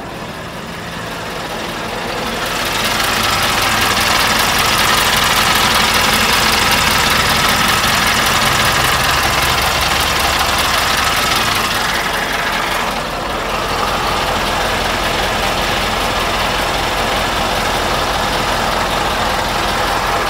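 Scania R 730's V8 diesel engine idling steadily, heard close up from beneath the truck. It grows louder about three seconds in and dips briefly around the middle.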